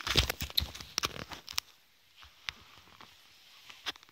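Handling noise from a phone camera being moved about: rubbing and knocking on the microphone, densest and loudest in the first second and a half, then a few scattered clicks.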